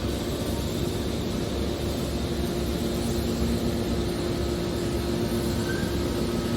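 Industrial machinery running steadily: an even mechanical hum with two steady tones over a noisy rumble.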